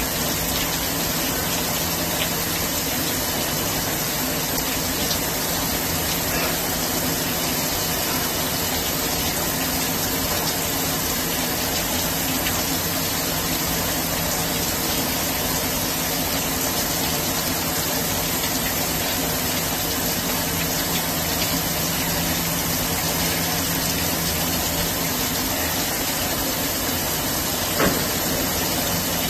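Swiss-type CNC lathe machining under flood coolant: a steady rush of cutting fluid spraying over the tools and workpiece, with a steady machine hum underneath. A brief knock sounds near the end.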